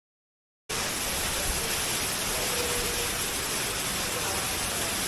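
Waterfall rushing, a steady, dense roar of falling water that cuts in suddenly less than a second in.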